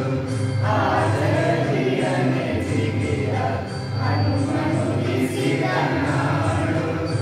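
Children's school choir singing a Kannada song together, with a steady low accompaniment underneath.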